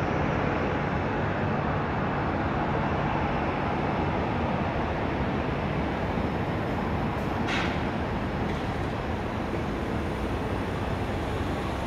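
Twin turbofan engines of a Cessna Citation Latitude business jet at takeoff power during the takeoff roll, a steady rumbling roar. A brief high-pitched chirp cuts in about two-thirds of the way through.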